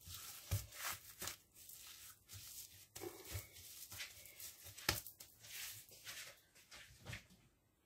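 Faint crinkling and rustling of plastic cling film as it is pressed and smoothed around a ball of dough by hand, in short scattered rustles, the loudest about five seconds in.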